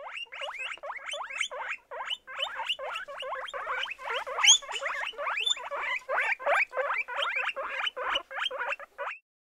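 An animal giving a rapid, unbroken series of short squeaky calls, about three to four a second, that cuts off abruptly near the end.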